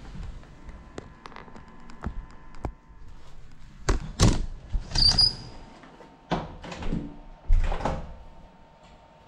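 A door being moved and shut: a few light clicks, then a run of knocks and thumps, with a brief high squeak about five seconds in.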